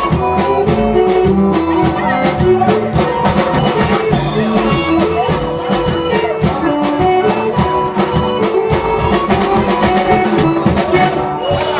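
Dance-band music in vanera style: an instrumental passage with a drum kit keeping a steady beat under sustained melody notes.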